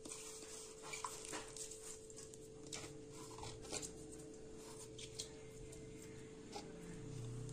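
Faint soft taps and rustles as wet drumstick leaves are tipped and shaken out of a plastic bowl into a steel mixing bowl, about half a dozen light knocks spread out, over a steady faint hum.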